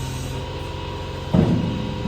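A steady mechanical hum, with one loud clunk about a second and a half in, like a heavy metal part knocked or dropped.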